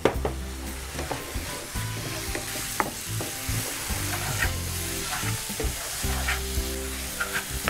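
Thick carrot and beetroot halwa sizzling in frying pans while a wooden spatula stirs and scrapes it, with scattered light clicks of the spatula against the pan.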